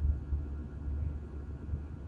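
Jet airliner cabin noise during the climb: a steady low rumble of the engines and airflow heard from inside the cabin, with a faint even hum above it.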